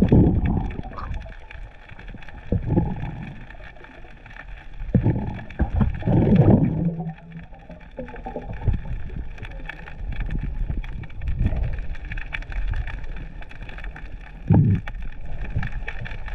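Underwater sound picked up by a diver's camera: muffled rushes and gurgles of water that come in irregular surges, loudest about five to seven seconds in, over a steady faint high hum.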